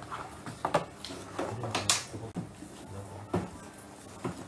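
Cardboard box and paper packaging being handled: rustling and crinkling with a few sharp knocks, the loudest about two seconds in.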